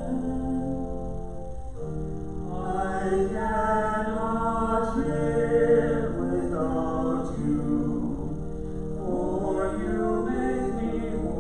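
Two women's voices singing a hymn together over a steady, sustained instrumental accompaniment.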